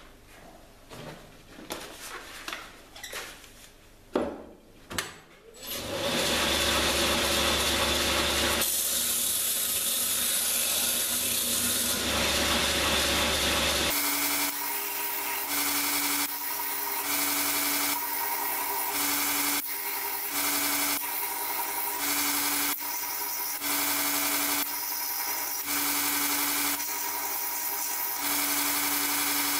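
A few clicks and knocks, then a belt grinder starts about six seconds in and runs with a steady hum. From about 14 s a san mai knife blade (Damascus sides over a wootz steel core) is ground on an 80-grit belt in regular passes a little over a second apart, removing metal to expose the core along the edge.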